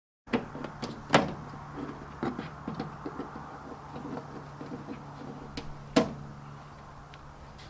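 Sharp clicks and knocks of a hand tool working at a van's rear-door trim panel, plastic and metal tapping irregularly. The loudest knocks come about a second in and near six seconds, over a steady low hum.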